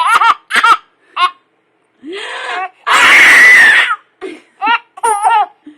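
A baby laughing in short high-pitched peals. About two seconds in, an adult gives a drawn-out 'ah…' and then a loud sneeze lasting about a second. The baby's laughter picks up again right after the sneeze.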